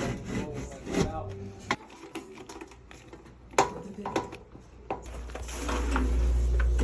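Sharp clicks and knocks of parts being handled. About five seconds in, an HVAC blower starts and a steady low hum with a rush of air builds up, as the freshly cleaned blower wheel spins up and moves air.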